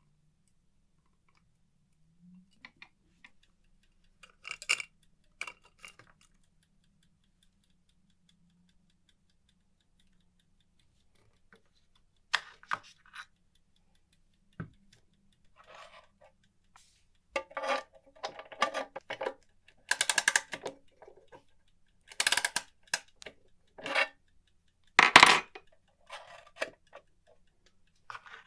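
Irregular clicks and light metallic clinks from handling a mantel clock and its small parts: a few at first, then a busier run of clatter in the second half.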